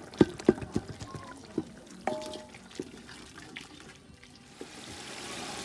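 Spoon knocking and scraping against a metal cooking pot as a tomato mixture is stirred, a quick run of clinks that thins out over the first three seconds. A steady hiss comes in near the end.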